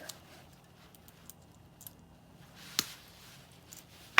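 Light clicks and taps of small metal parts and a hand tool being handled on a workbench, with one sharper click about three seconds in.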